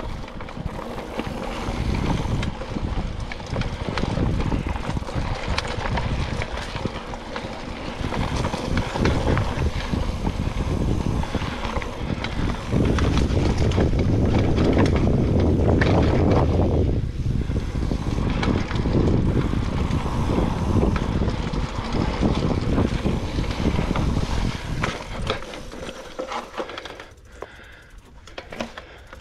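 Mountain bike being ridden over dirt singletrack: tyres on the dirt and the bike rattling over bumps, with wind rushing over the camera microphone, heaviest around the middle and easing off near the end.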